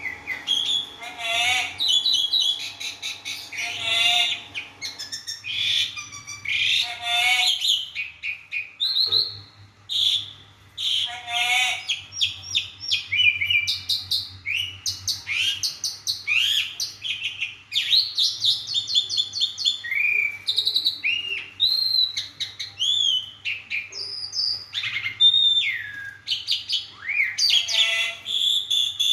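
Javan pied starling singing a long, varied song of loud whistles, rising and falling slurred notes and rapid chattering trills, with a faint steady low hum underneath.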